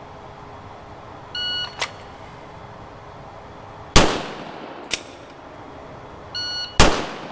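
Two pistol shots about three seconds apart, each with an echoing tail, fired at targets 19 to 20 yards away. Short electronic beeps sound about a second in and just before the second shot.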